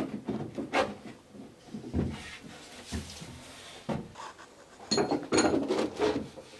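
Plywood centreplate pattern being handled against the wooden centreplate case, knocking and rubbing on the wood: scattered single knocks, then a quick cluster of clattering knocks about five seconds in.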